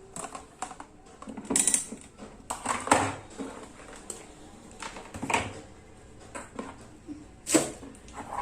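A series of irregular clicks and knocks, several of them sharp and loud, like hard objects being handled and set down.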